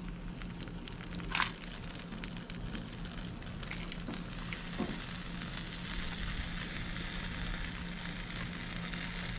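Marinated chicken inasal skewers sizzling and crackling over a charcoal grill while being basted with marinade, with a faint steady low hum underneath.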